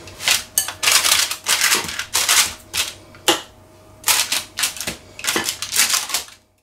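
Metal spoon scraping and patting thick cake batter across parchment-lined baking paper, the paper crinkling: a run of short irregular scrapes that cuts off just before the end.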